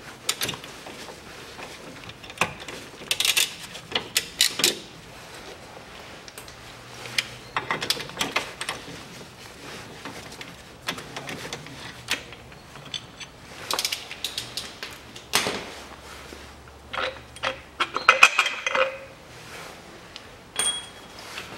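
Hand ratchet and socket undoing the bolts of the rear engine mount: bursts of quick ratchet clicking and metal clinks of tool and bolts, the densest and loudest burst near the end.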